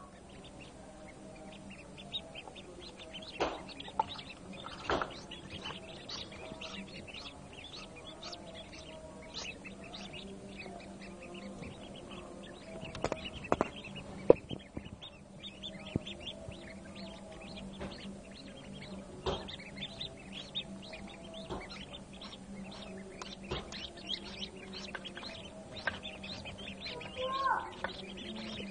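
A crowd of newly hatched Peking and hybrid ducklings peeping nonstop in a dense chorus of short high chirps, over a steady low hum. A few sharp taps stand out, several near the start and two close together about halfway.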